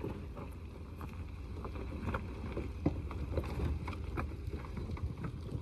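Chevrolet Suburban driving slowly over a dirt road: a steady low rumble with scattered knocks and rattles from the bumpy surface.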